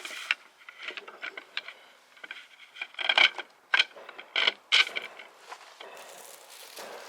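A series of sharp clacks and knocks from hard objects being handled, the loudest ones near the middle, followed by a soft rustling near the end.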